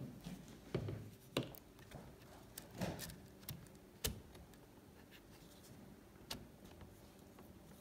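A few light clicks and taps of a replacement HP laptop battery's plastic casing being handled and set down into the open laptop chassis. The sharpest click, about four seconds in, comes as it is pressed into place.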